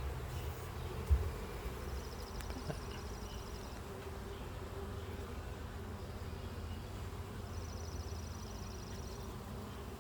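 Honey bees buzzing steadily in a swarm over an open hive with its frames pulled out, with a single knock about a second in.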